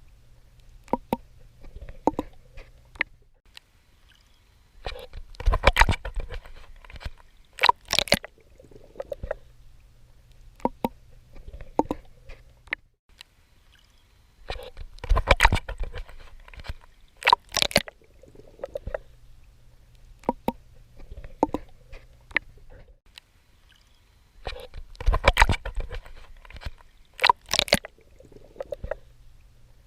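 Water splashing and sloshing as a swimmer strokes through the sea. The sound comes in a cycle about every ten seconds: three times a cluster of louder splashes, with quieter sloshing and small drips and clicks between.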